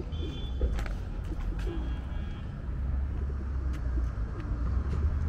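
Steady low rumble of city street traffic, with two short high steady tones in the first two and a half seconds.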